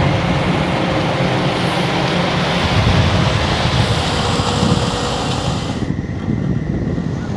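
Diesel engine of heavy construction machinery running with a steady, loud rumble. The hiss in the upper range drops away about six seconds in, leaving the lower engine rumble.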